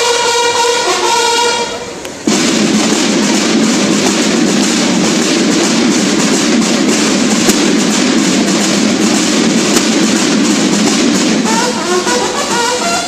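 Mexican banda de guerra: the bugles end a phrase about two seconds in, then the drums play a fast, dense rolling passage on their own. The bugles come back in near the end.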